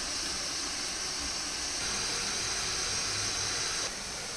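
Sliced onions frying in oil in a large pot, a steady sizzle that drops slightly in level about four seconds in.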